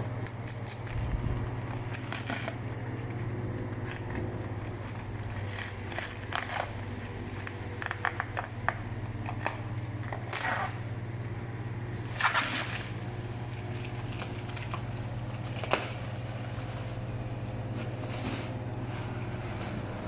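Packaging being cut and torn open on a tool chest delivery: scattered snips, clicks, scrapes and crackling rustles of wrapping, over a steady low hum.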